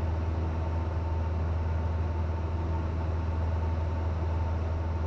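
Cessna 172N's piston engine droning steadily, heard inside the cabin: a constant low hum with a faint steady high tone above it.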